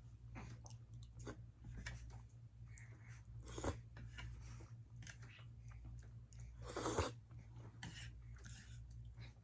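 A person chewing and eating food close to the microphone, with irregular wet mouth sounds and two louder bursts, one about a third of the way in and one about three quarters in.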